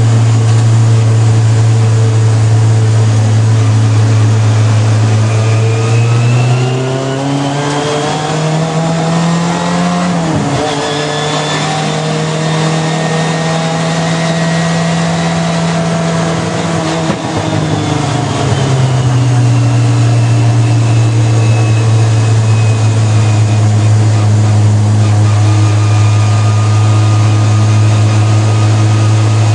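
Race car engine heard from inside the cabin, running loud and steady. Its pitch climbs about six seconds in, breaks sharply around ten seconds, holds at a higher note, then falls back to the lower steady note about seventeen seconds in.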